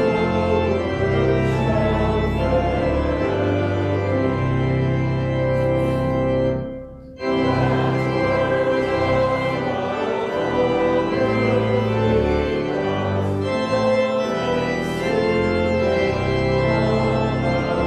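Church organ playing held chords over a slowly moving bass line, with a short break between phrases about seven seconds in. It is the closing voluntary (postlude) at the end of the service.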